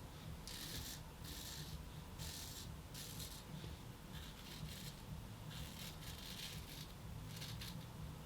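Shaw & Sons 9/8-inch straight razor scraping through stubble on the face in a series of short, irregular strokes.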